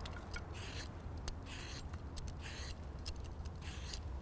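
A small blade paring the peel off a lemon: short scraping strokes one after another, with small clicks between them.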